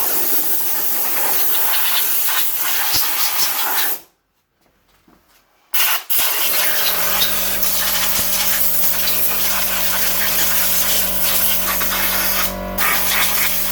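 Compressed-air blow gun hissing as it blasts dirt out of the opened robotic mower's housing, cutting out for about two seconds and starting again. From about six seconds in, a steady low machine hum runs underneath.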